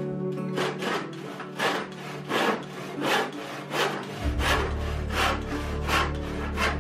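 Handsaw cutting through a thin wooden board: steady back-and-forth strokes, about one and a half a second, starting about half a second in, with background music underneath.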